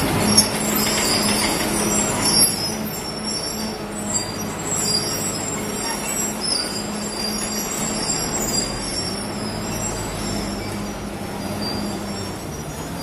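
Fiat Kobelko FL145 crawler loader's diesel engine running as the machine moves on its steel tracks, the tracks squealing. Two loud knocks in the first few seconds, as broken concrete tips from the raised bucket into the dump truck's steel bed.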